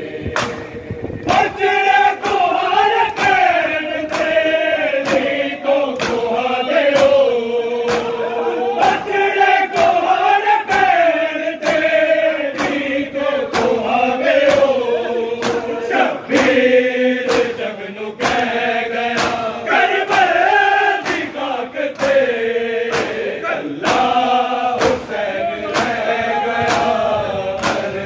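A group of men chanting a noha, a Shia lament, in unison, over the sharp slaps of matam chest-beating that keep a steady beat of about three every two seconds.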